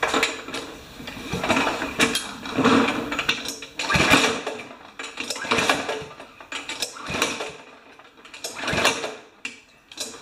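Powermore engine on a Remington push mower being pull-started: a run of irregular knocks and clatters as the engine bucks against the recoil rope instead of running smoothly, a sign of something wrong inside that the owner has not yet found.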